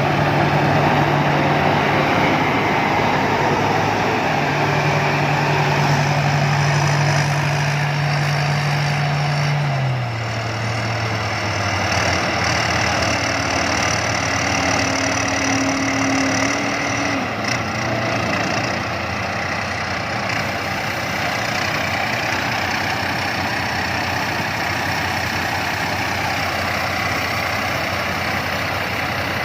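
Rice combine harvester's diesel engine running steadily, its note stepping down slightly about ten seconds in.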